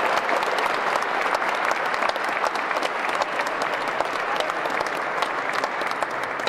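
Audience applauding steadily with dense clapping, fading slightly toward the end.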